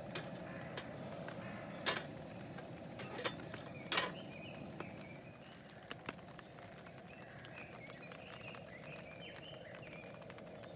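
Birds chirping in short repeated calls over a steady outdoor background, after three sharp clicks in the first half.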